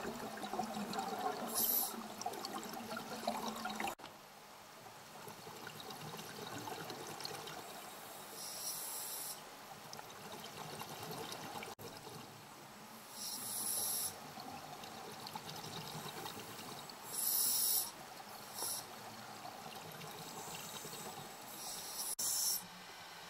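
Scuba regulator breathing underwater: short hissing breaths every few seconds, about six in all, over a steady bubbling water noise.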